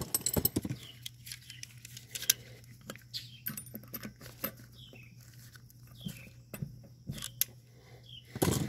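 Pliers working a steel cotter pin through a riding mower's front axle and washer: scattered sharp metal clicks and scrapes, with a quick run of them at the start, a single loud click about two seconds in, and another cluster near the end.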